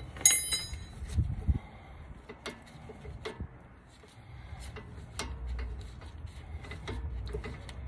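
Hand tools working on a rear brake caliper: a sharp, ringing metal clink just after the start, then scattered small metal clicks and ticks as the caliper bolts are worked loose.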